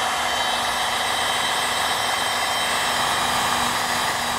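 Wagner electric heat gun running: a steady rush of blown air over a faint motor hum, aimed at faded plastic bumper trim to bring back its black.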